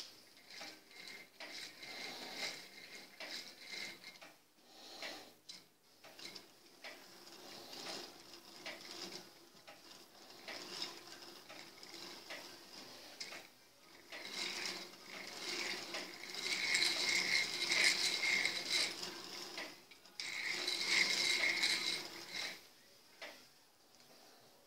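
Plastic K'NEX gears of a differential turning and meshing, a continuous rapid clicking rattle of gear teeth that grows louder in two stretches in the latter half.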